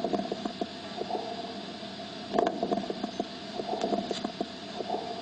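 Rales (crackles) in a lung-sound recording: clusters of short bubbling crackles over a steady hum, the sign of fluid in the smaller airways, as in congestive heart failure or pulmonary edema.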